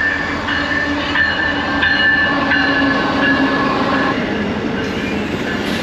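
Amtrak passenger train pulling into the station: a steady loud rumble with held high squealing tones over it, which die away about four seconds in.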